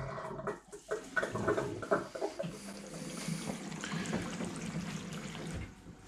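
Water rushing into a Samsung front-loading washing machine through its detergent drawer as the machine fills for a rinse and spin cycle, with a steady low hum joining about two and a half seconds in. A few knocks and clatters come in the first two seconds.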